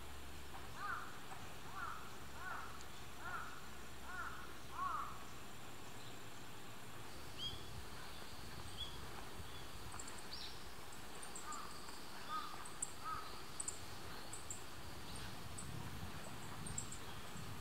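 Outdoor bird calls: a run of about six crow-like caws in quick succession over the first few seconds, a few more caws later, and small birds chirping high and briefly in the second half, over a steady rural background noise.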